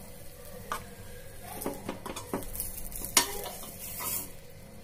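A few light clicks and taps of kitchenware being handled, over a faint steady hiss; the sharpest tap comes about three seconds in.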